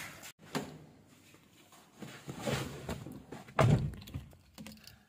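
A car door swinging shut with one heavy thunk about three and a half seconds in, after rustling and handling noise as someone gets into the car.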